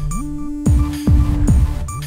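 Electronic intro music with a heavy kick drum about twice a second and a synth bass line that slides up in pitch.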